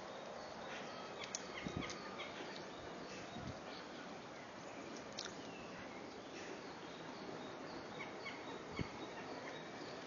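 Birds calling with many short, high chirps scattered throughout, over steady outdoor background noise. A soft low bump near the end.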